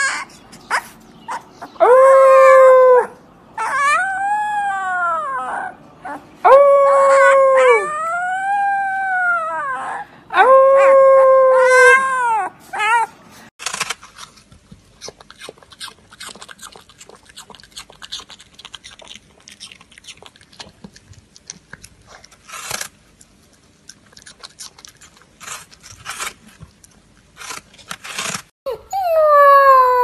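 Husky puppy howling: about six short cries that rise and fall in pitch. A quieter stretch of a puppy chewing an apple follows, with scattered crunching clicks. Near the end another husky puppy begins to howl.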